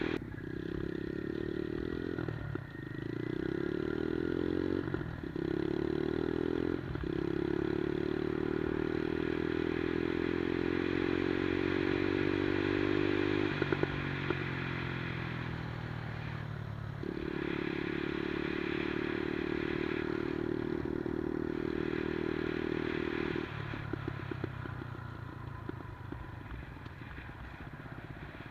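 110cc single-cylinder four-stroke engine of a Monkey-style minibike being ridden, pulling up through the gears: the note climbs and then drops at each shift, about half a dozen times. Near the end it settles to a lower, rougher note as the throttle comes off.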